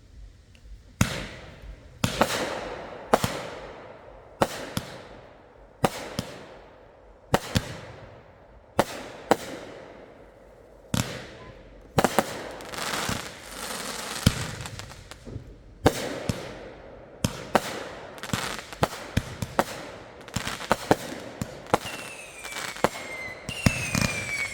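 Consumer fireworks going off: sharp bangs about every second, each followed by crackling. The bangs come faster in the second half, and falling whistles join in near the end.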